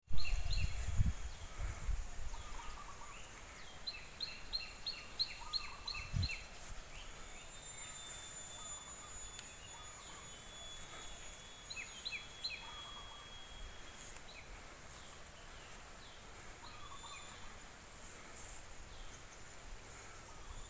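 Birds calling in rural scrubland: quick runs of repeated chirps, about four to six seconds in and again around twelve seconds, with scattered single chirps between, over a thin, steady high insect buzz in the middle. A low rumble at the start and a single low thump about six seconds in are the loudest sounds.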